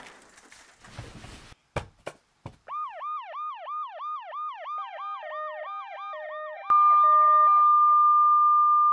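Electronic alarm sound effect: a rapid run of falling beeps, about three or four a second, joined partway by a second two-note beeping. After a click it changes to one steady high continuous tone. A few sharp clicks come before the beeping starts.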